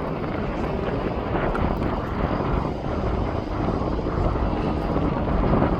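Steady rumbling jet aircraft engine noise, strongest in the low range, with no distinct events.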